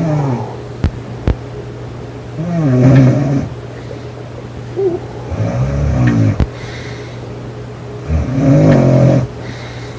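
A girl snoring loudly: three long, rattling snores, one about every three seconds, over a steady low hum. Two sharp clicks come about a second in.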